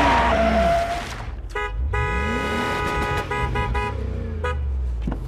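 A car horn honking in a series of toots, one long blast and several short ones, over the low running of an engine. The horn is preceded by a loud rush of noise in the first second.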